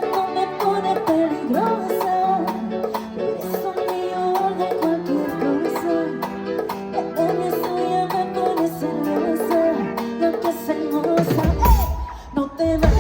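Live Latin band playing a merengue, with melody voices and a quick, even percussion pattern. About eleven seconds in the arrangement shifts and a heavy, low bass beat comes in.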